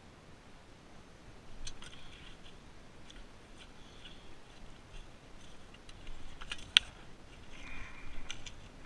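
Scattered light clicks and short scrapes of stones and sand being dug, with one sharp click about two-thirds of the way through.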